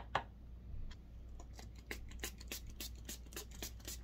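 Small handling sounds of CA glue bottles on taped wood: two sharp clicks at the start, then a quick, uneven run of light ticks and crackles from about a second and a half in.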